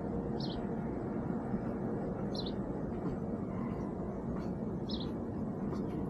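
A small bird giving short, high chirps about every two to two and a half seconds, three in all, over a steady low background rumble.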